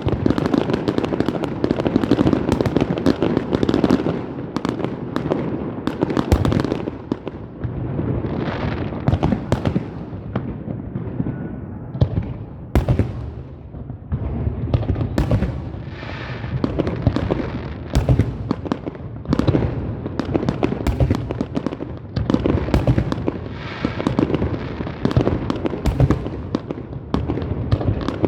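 Fireworks going off in a nearly continuous barrage of bangs and crackling, with a few sharper single bangs standing out in the middle.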